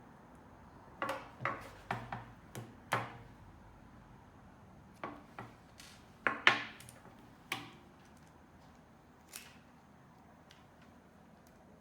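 Sharp clicks and snaps of a windshield wiper blade and its refill being handled and fitted, in two quick runs of about six each and one last click near the end.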